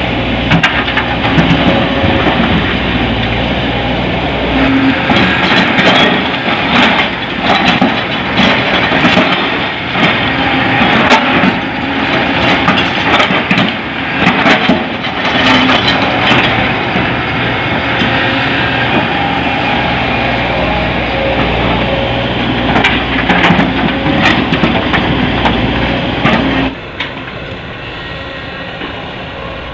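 Heavy diesel machinery running steadily while rock is loaded into a dump truck bed, with frequent knocks and clatter of rock striking the bed. About three-quarters of the way through, the sound suddenly drops to a quieter engine hum.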